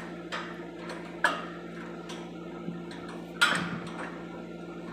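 A few sharp metal clanks and clicks from a steel cable winch being worked by hand on a lattice tower, the loudest about three and a half seconds in, over a steady low hum.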